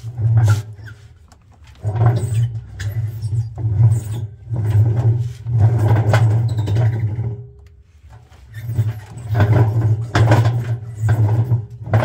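Front-loading washing machine drum turned by hand, rumbling in repeated stretches of a second or two with short pauses between them.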